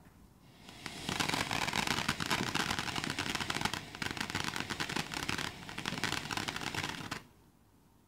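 Ground fountain firework spraying sparks with a dense, rapid crackle that builds over the first second, holds steady for about six seconds, then cuts off suddenly.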